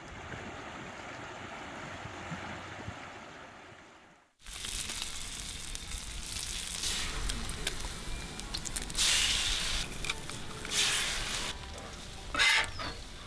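Food sizzling in a hot frying pan, a steady hiss with several louder flare-ups, starting after a cut about four seconds in; before it, a softer steady hiss that fades away.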